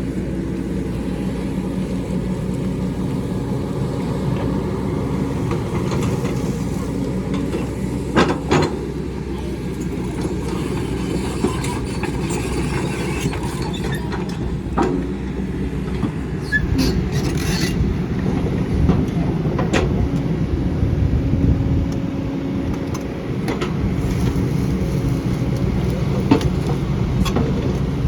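Diesel excavator engine running steadily under load, heavier from about halfway through, with scattered sharp knocks and clatter from the bucket working rock.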